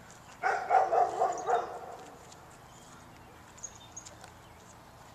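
Bouvier des Flandres puppy barking, a quick run of about five barks lasting under two seconds, then faint light clicks.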